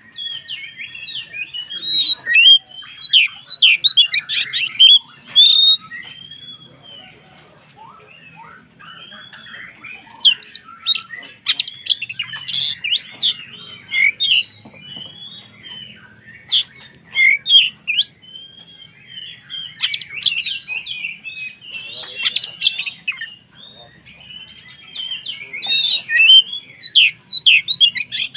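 Oriental magpie-robin (kacer) in full, vigorous song: about five loud bursts of rapid, varied high chirps and whistles, each lasting a few seconds, with quieter warbling between them.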